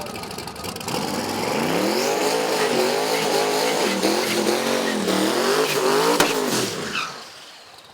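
Twin-turbo 427 V8 of a drag-race VC Commodore revving hard under load. About a second in its pitch climbs, then it rises and falls in a series of swells. There is a sharp crack near the end before the engine note falls away.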